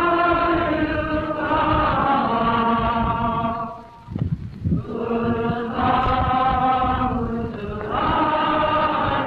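Many men's voices chanting in unison in long held notes that step down in pitch, with a short break about four seconds in, heard through an old, narrow-band film soundtrack.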